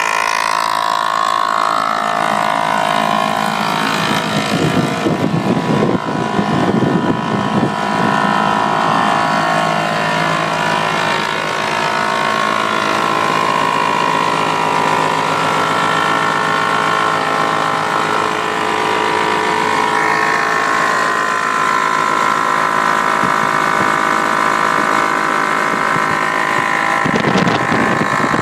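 MZ 34 single-cylinder two-stroke aircraft engine running on a ground run-up with its propeller turning, steady apart from small shifts in engine speed early on and a louder, rougher stretch near the end.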